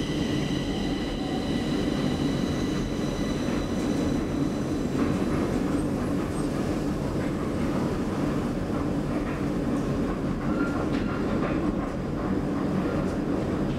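A 1984 KONE inclined elevator car travelling along its inclined track: a steady, even rumble of its wheels on the rails, with a few faint clicks in the second half.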